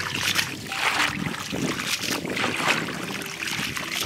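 Plastic basket scooping and sloshing through shallow muddy water, with repeated splashes about two a second.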